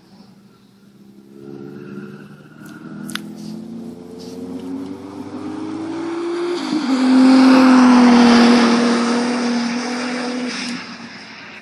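Toyota MR2 with a GT35R-turbocharged V6 engine accelerating hard down a straight, its engine note rising steadily in pitch and growing louder. About seven seconds in the pitch drops sharply to a lower note, loudest for a few seconds, and then it fades away near the end, as from a car passing by.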